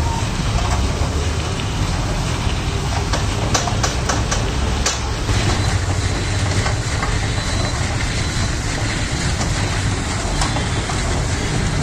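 A steady low mechanical rumble, with a few sharp clicks about three and a half to five seconds in.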